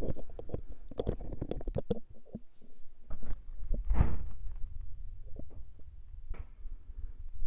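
Plastic clicks and knocks from handling the lid and pump of a pump-style whipped cream maker as it is opened, with a louder burst of sound about four seconds in.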